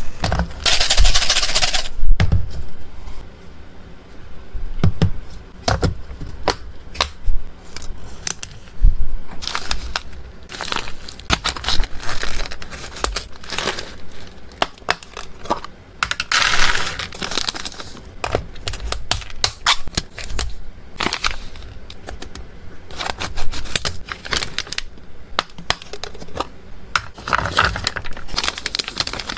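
Plastic and foil pet-treat packets crinkling as they are handled, with dry kibble and freeze-dried goose heart treats tipping into clear plastic boxes: a long run of small clicks and taps, with bursts of crackly rustling about a second in, around the middle and near the end.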